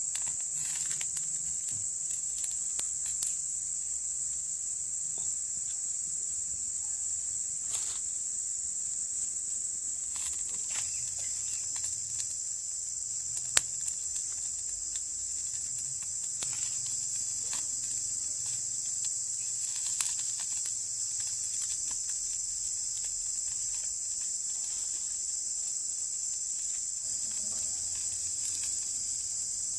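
Steady, high-pitched drone of an insect chorus, with scattered short clicks and taps; the sharpest click comes about halfway through.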